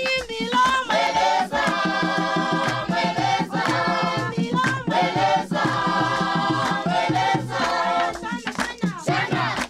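Choir singing a song in several voices over a steady percussion beat, in phrases of a second or two.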